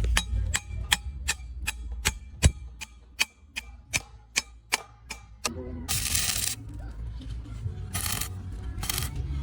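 A hammer striking steel in quick, even blows, about four a second, each with a short metallic ring; they stop after about five seconds. Then come three short bursts of hiss, over a steady low hum.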